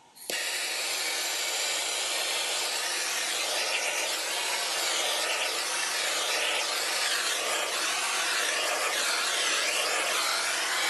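Hot-air blower switched on about a third of a second in, then running steadily with a rush of air that wavers slightly.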